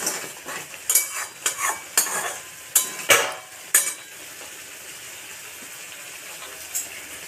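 Metal spatula scraping and knocking against a kadai as fish pieces are stirred in hot oil; after about four seconds the stirring stops and the oil sizzles steadily around the frying fish.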